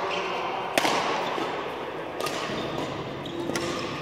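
Badminton rackets striking a shuttlecock in a rally: three sharp hits, about a second and a half apart, the first the loudest.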